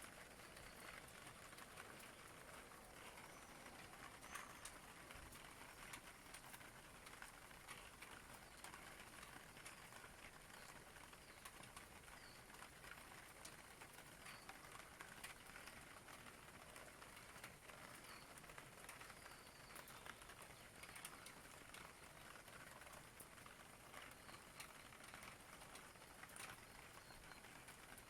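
Faint steady rain, with scattered drops ticking. Small bird chirps come through now and then.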